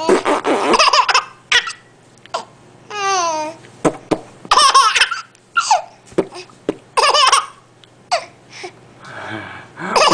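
A baby laughing hard in repeated bursts. About three seconds in, a warbling funny sound that falls in pitch sets off more laughter.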